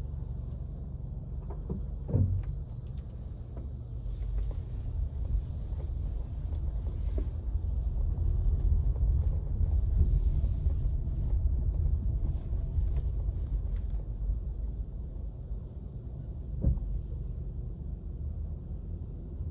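Car driving on city streets: a steady low road and engine rumble that swells louder through the middle, with a short knock about two seconds in and another near the end.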